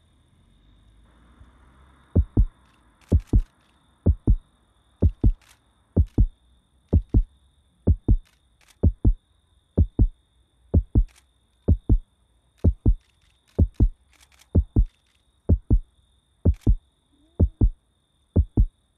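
Heartbeat sound effect: pairs of deep thumps in a lub-dub pattern, about one beat a second. The beat resumes after a short pause at the start, over a faint steady high whine.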